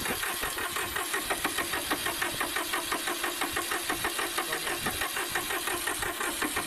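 Massey Ferguson 1010's diesel engine being cranked over by its starter with ether sprayed into the intake, turning over in a steady rhythm of about four compression pulses a second without catching.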